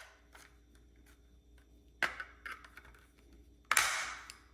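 Plastic smoke detector cover being pried off with a screwdriver: a few small clicks, then a sharp snap about two seconds in and a louder one near the end as the cover's clips let go.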